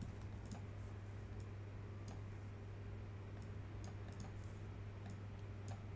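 A dozen or so light, scattered clicks from a computer mouse and keyboard, over a steady low electrical hum.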